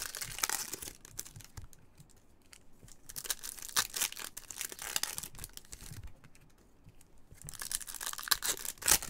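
Foil wrapper of a Topps Chrome trading card pack crinkling and being torn open in gloved hands. It comes in three bursts of rustling with sharp crackles, near the start, in the middle and near the end.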